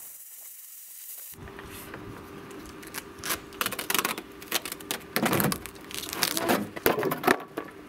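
A plasma cutter hisses briefly as it finishes the cut. Then the cut-out sheet-steel panel of a Volkswagen Transporter's side scrapes and clatters against the van body as it is worked loose and pushed free, in irregular scraping clusters that are loudest from about three to seven seconds in.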